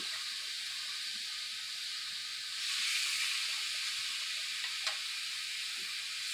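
Marinated pork rib steaks sizzling on a hot flat-top griddle, a steady hiss that swells louder about two and a half seconds in as another steak is laid on the hot surface. A single light click sounds near the end.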